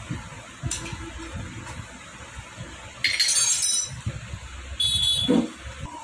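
Metal hand tools clinking and scraping on a bare motorcycle engine: a sharp click about a second in, then two loud, harsh metallic scrapes, one around the middle and one near the end.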